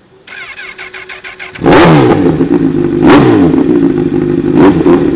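Honda CBR1000RR inline-four superbike engine through a loud aftermarket exhaust: it comes in quietly, then about a second and a half in it is revved hard and held at high revs, the note swelling and dipping repeatedly with sharp cracks about every second and a half.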